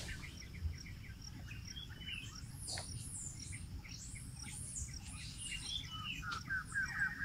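Wild birds chirping and calling in a forest, short scattered chirps and sweeping notes, ending in a quick run of evenly repeated chirps.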